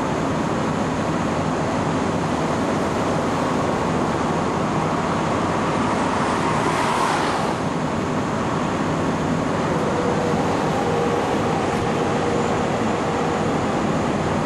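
Steady traffic noise from interstate highway vehicles passing below, with one vehicle sweeping past close about seven seconds in.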